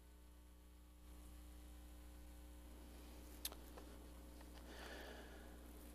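Near silence: a low steady electrical hum, with one sharp click about three and a half seconds in and faint paper rustling shortly after.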